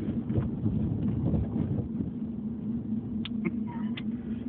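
Steady hum of a car's engine and road noise heard inside the cabin, with a few faint short sounds near the end.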